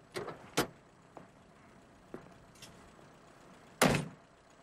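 Car door latch clicking open with a couple of sharp clicks, a few faint knocks, then the car door slammed shut about four seconds in.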